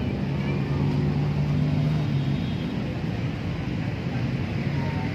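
A motor engine droning steadily at a low pitch, loudest in the first half and then easing off, over a constant outdoor hiss.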